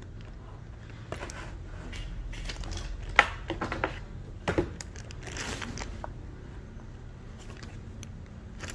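Plastic keycaps being handled and set down on a surface: light rustling with a few sharp clicks, the loudest about three seconds in.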